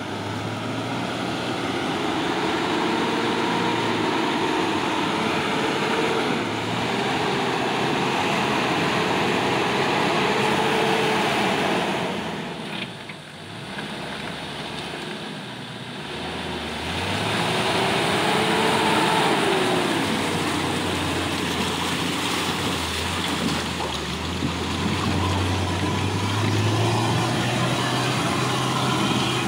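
Toyota Land Cruiser 75-series pickup engine working under load through deep mud ruts, its revs rising and falling again and again. It eases off briefly about halfway through, then pulls hard again.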